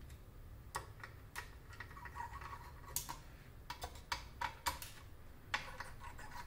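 Irregular small sharp clicks and ticks of a screwdriver working the screws that hold the cooler on a graphics card as they are taken out, about ten over a few seconds.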